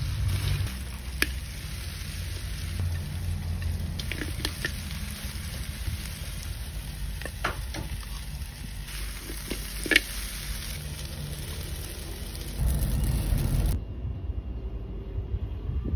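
Stir-frying in a metal wok: food sizzling over a steady low rumble, with a metal spatula scraping and clanking against the wok several times, the loudest clank about ten seconds in. The sound cuts off abruptly near the end to a duller background.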